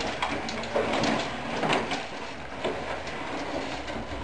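Electric mobility scooter driving, its motor running with a steady hum, with a few scattered knocks and rattles as it rolls along.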